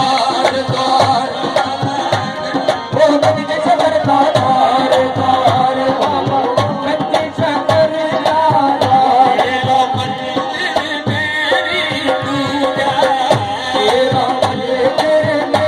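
Music with tabla drumming under a wavering melodic line, in a South Asian style.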